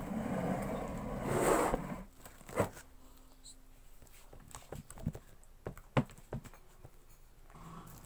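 Sticky homemade glue slime being stretched, squeezed and pressed by hand: a rustling squish for about the first two seconds, then scattered wet clicks and small pops as it pulls off the fingers and the table.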